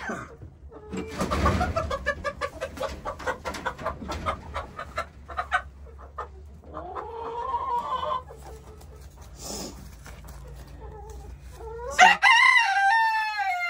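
Chickens in a coop as a hen is caught: wing flapping and scuffling in the first few seconds, a rising squawk in the middle, and a loud rooster crow near the end that slowly falls in pitch.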